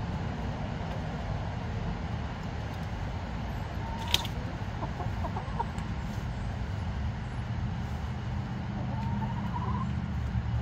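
Hens clucking, with short calls about five seconds in and a call that rises in pitch near the end. Under them runs a steady low rumble, and there is one sharp click about four seconds in.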